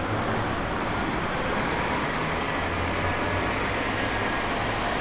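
Engines of heavy road-works machinery running steadily, a low hum under a constant wash of road noise.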